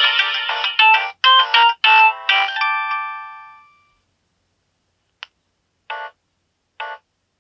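Polyphonic ringtone played through a Nokia 7610 phone's speaker. The melody ends in a short flourish of separate notes that ring out and fade away, followed by a click and two short beeps.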